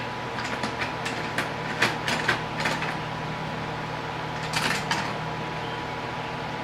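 Steel parallel bar clamps being set and tightened on a wooden frame: a scatter of short clicks and knocks over the first three seconds and another brief cluster near five seconds, over a steady background hum.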